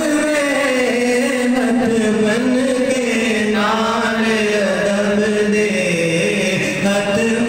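A solo male voice singing a Punjabi naat in a chanting style, without instruments, amplified through a handheld microphone. He holds long notes that bend and slide in pitch without a break.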